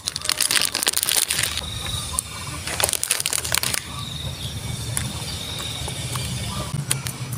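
Plastic snack wrapper of a Nextar cookie crinkling as it is torn open and handled, in quick crackling bursts for the first couple of seconds and again around three seconds in. After that, quieter mouth sounds of eating.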